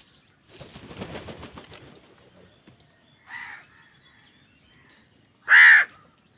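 Crow wings flapping for about a second and a half, then a short call about three seconds in and one loud caw near the end.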